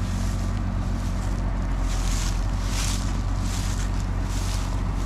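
Diesel engine of the harvest machinery running steadily at a constant speed, a low, even hum, with a hiss over it that swells and fades a little more than once a second.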